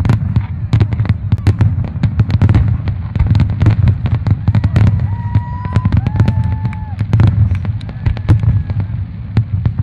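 Aerial fireworks display: a rapid, dense series of cracks and booms from bursting shells over a continuous low rumble. A few faint whistling tones are heard about halfway through.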